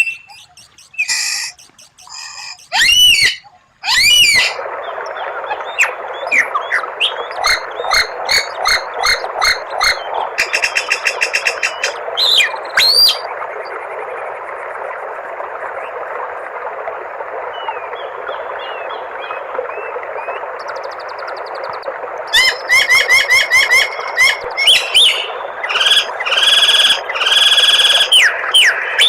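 Songbird singing in a varied sequence of sharp whistled notes, rapid repeated chips and buzzy trills, over a steady hissing background that starts about four seconds in. Near the end the notes come in dense, fast bursts.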